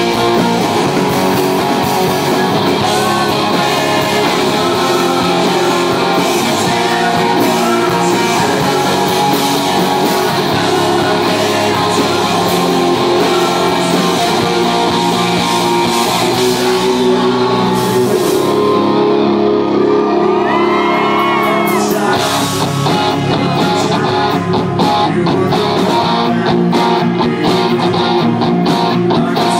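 Live rock band playing: electric guitar, bass guitar and drums with a male lead vocal. The cymbals drop out for a few seconds about two-thirds of the way through, then the full band comes back in.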